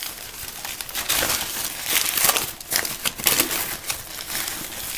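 Newspaper wrapping crinkling and rustling as it is pulled and crumpled off a potted orchid plant, in a series of uneven crackly rustles.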